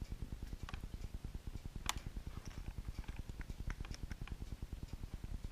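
Small clicks and light taps from a screwdriver and small parts being handled on a drone's gimbal camera during disassembly, the sharpest click about two seconds in. Under them runs a low, rapid pulsing hum.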